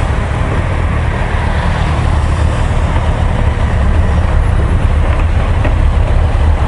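Sport motorcycle engines running at low speed and then idling at a stop, heard as a steady low rumble on the bike-mounted microphone.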